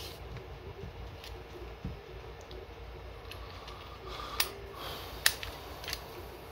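Plastic clicks and light knocks from a Dewalt gyroscopic cordless screwdriver and its black plastic accessory clip being handled and pulled apart, with a few sharp clicks a little after four and five seconds in.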